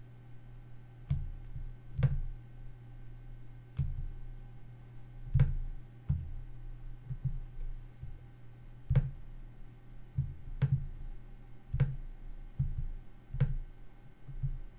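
Computer mouse clicking about a dozen times at irregular intervals, each click carrying a dull knock, over a faint steady hum.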